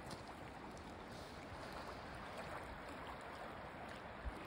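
River water flowing steadily, an even hiss without breaks.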